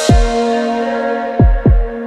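Background music: held synth chords with deep bass-drum hits that drop in pitch, one at the start and two in quick succession about one and a half seconds in.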